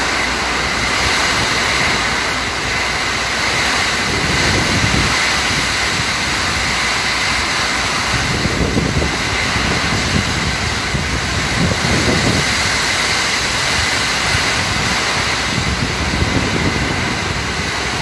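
Hurricane rain and wind: a steady, loud roar of downpour, with the wind gusting through the trees in low rumbling surges several times.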